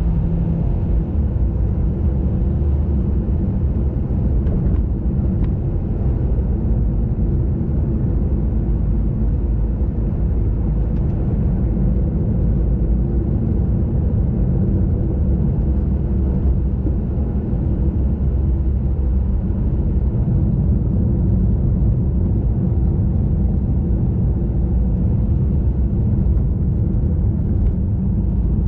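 Steady low rumble of wind and tyre-on-road noise from a bicycle being ridden along a paved road.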